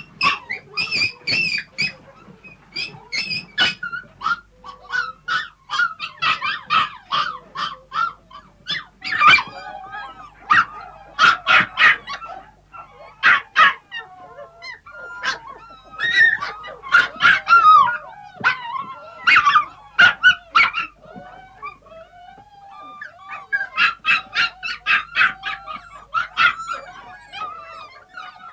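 A group of puppies yapping and whining together: short high-pitched yaps come thick and fast and overlap, with drawn-out whines between them, thinning briefly about three quarters of the way through.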